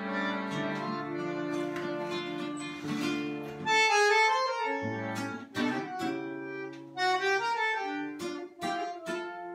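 Bandoneón and acoustic guitar playing tango. The bandoneón holds sustained chords at first, then from about four seconds in plucked guitar notes and sharp accented chords come to the fore.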